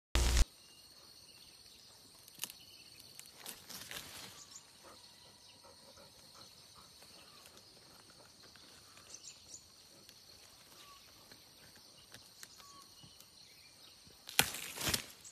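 Faint outdoor ambience with a steady, high insect drone, broken by scattered small rustles and scrapes. There is a short loud burst right at the start and louder rustling bursts near the end.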